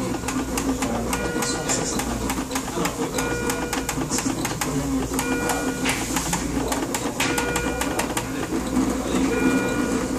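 Dixtal EP12 electrocardiograph printing an ECG strip: its paper-feed printer runs with rapid clicking, and a higher tone pattern comes back about every two seconds.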